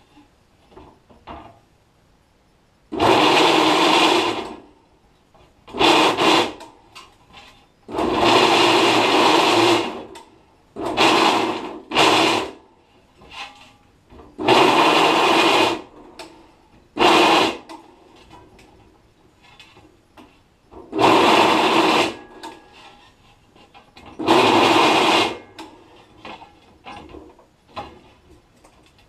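Drill press bit cutting into holes in an aluminium plate, in about nine loud bursts of half a second to two seconds, with quiet gaps and light clicks between them.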